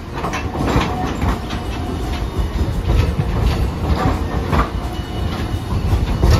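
Hiroden Green Mover LEX low-floor tram rolling slowly past close by: a low rumble with its wheels clacking over the rail joints and pointwork several times.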